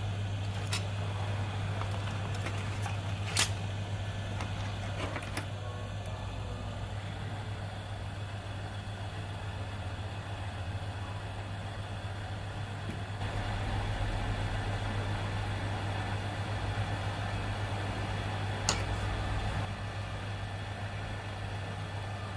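Hot-air rework gun blowing steadily with a low hum while it heats a capacitor on a laptop mainboard to melt its solder. A few sharp clicks of tools on the board, the loudest about three and a half seconds in.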